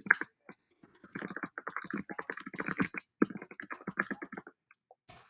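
Fast typing on a computer keyboard: quick runs of key clicks, with a short pause about a second in, stopping about four and a half seconds in.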